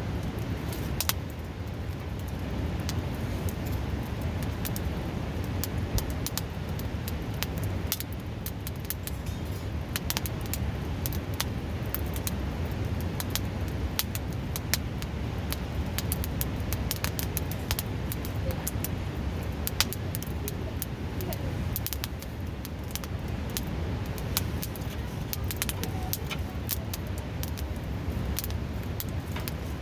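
Wood fire crackling and popping with frequent sharp, irregular snaps, over the steady rush of a nearby river.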